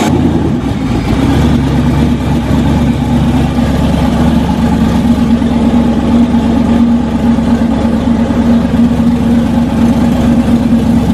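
Twin-turbo LS V8 in a rat rod idling steadily, loud, just after being started following a lifter repair; it starts and idles fine.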